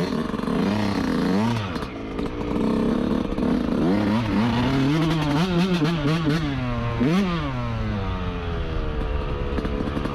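Yamaha YZ125 two-stroke dirt bike engine revving up and down under riding, several quick rises and falls in pitch, then one long drop in pitch as it slows near the end.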